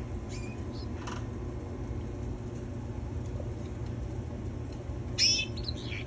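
Caged canaries calling: a few faint short chirps in the first second or so, then one louder, quickly warbling call about five seconds in. A steady low hum runs underneath.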